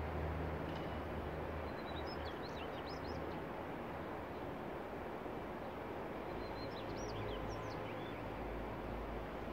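Steady outdoor background noise with a low hum, and small birds chirping in two short flurries, about two seconds in and again about seven seconds in.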